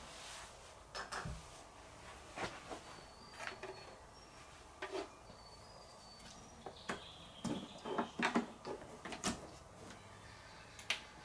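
Scattered clicks and light knocks of hands plugging a cable into the 12-volt car socket on a Bluetti EB3A portable power station and pressing its buttons, busiest in the last few seconds.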